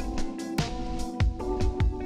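Background music with a steady drum beat over held notes.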